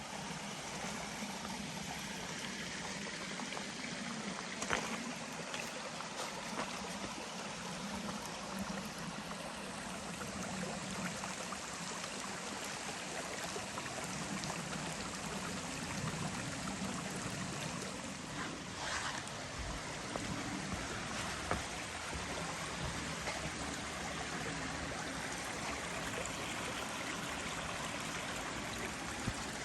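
Steady rush of a stream running over rocks, with a few faint clicks.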